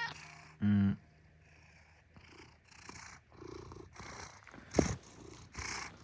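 Maine Coon cat giving one loud, short meow just under a second in, a morning demand for food, then purring with soft breathy pulses close to the microphone. A single sharp knock a little before the end, as the cat bumps against the phone.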